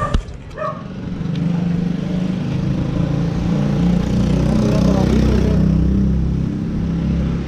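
A motor vehicle's engine running close by, a steady low hum that builds in over the first second or so and then holds, after a single sharp knock at the very start.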